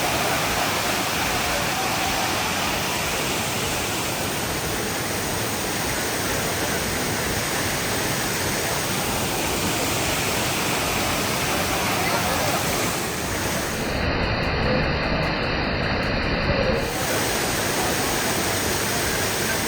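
Waterfall: water pouring and rushing in a steady, unbroken roar of noise. About fourteen seconds in, the hiss turns duller for some three seconds, then returns.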